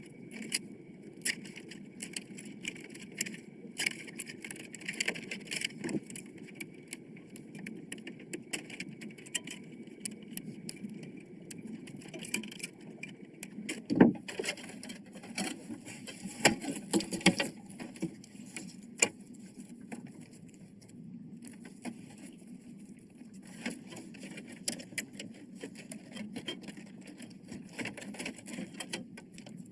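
Irregular clicks and knocks of computer parts being handled during assembly, with a louder knock about halfway through, over a steady low hum.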